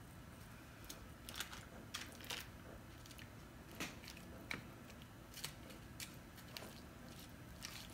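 Faint scattered clicks and soft squishes, about ten in all, as kitchen tongs pick up and set down sauce-coated chicken pieces on a foil-lined baking tray.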